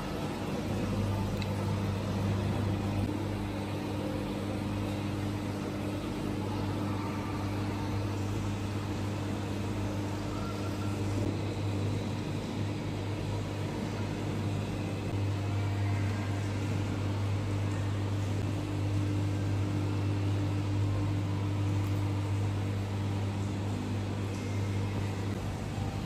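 Steady low machinery hum: a constant droning tone with fainter overtones above it, over an even background hiss.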